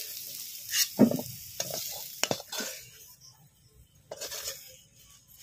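Flat metal spatula scraping and knocking against a karahi as fried papaya pieces are scooped out, over a hot-oil sizzle that dies away about halfway through as the pan empties.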